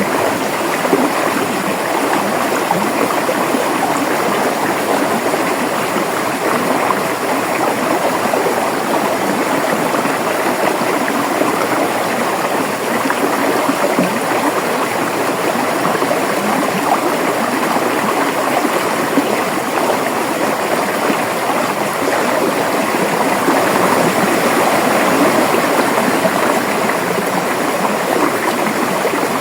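River water flowing and gurgling, a steady rush with no pauses.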